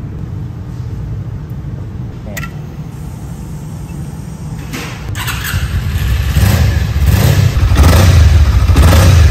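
Suzuki V-Strom 250 motorcycle engine running with a steady low rumble, then getting louder in repeated surges from about five seconds in as the bike pulls away.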